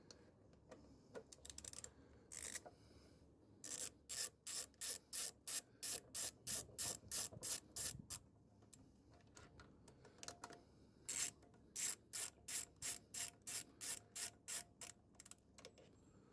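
10 mm socket ratchet wrench clicking in two runs of quick, even strokes, about three a second, as a bolt is turned.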